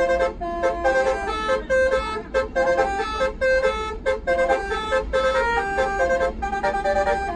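Multi-tone "basuri" telolet bus air horn playing a quick melody of short notes stepping up and down, over the low rumble of the bus.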